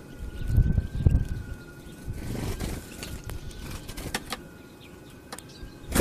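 Low rumble of street traffic, loudest about a second in, with a faint steady whine throughout and a few sharp clicks in the second half.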